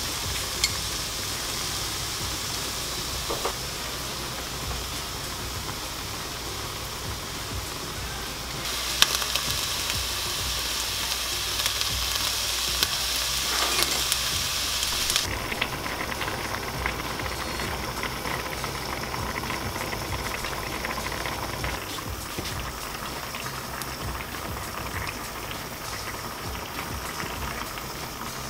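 Kimchi stew boiling hard in a thin aluminium pot, a steady bubbling and spitting with a few sharp pops. The bubbling grows louder about a third of the way in and drops back suddenly around the middle.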